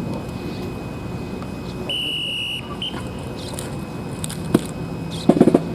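A single short, flat, high-pitched whistle blast about two seconds in, with a brief second peep just after, over steady outdoor crowd background. Near the end, a quick cluster of loud sharp knocks.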